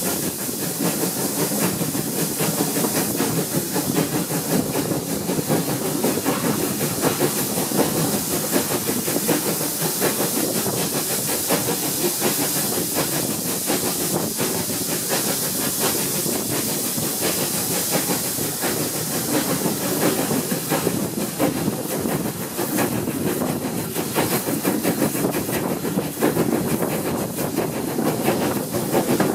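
Steam locomotive hauling a train, heard from an open carriage window just behind it: a steady hiss of steam mixed with the rumble and rattle of the train running on the rails.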